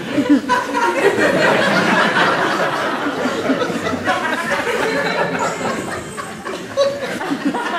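Audience in a hall laughing and chuckling at a comic moment, louder over the first few seconds and then dying down.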